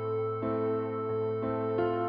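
Soft background music of sustained keyboard chords over a steady low drone, with the chord changing three times.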